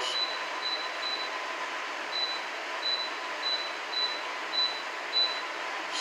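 JHS 12,000 BTU portable air conditioner running with a steady fan hiss. Short, faint, high beeps repeat about every half second as its timer setting is stepped up from the remote.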